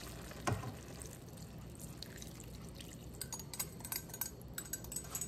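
Cornstarch slurry poured in a thin stream from a glass measuring cup into a pan of simmering stir-fry vegetables, liquid trickling and dripping into the hot pan. A single short knock about half a second in, and scattered small ticks and pops in the second half.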